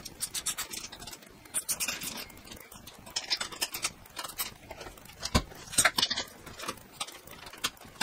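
Irregular small clicks, taps and scrapes of a hand tool working on a metal light-bar mounting bracket on a roof rack, with a single heavier knock about five seconds in.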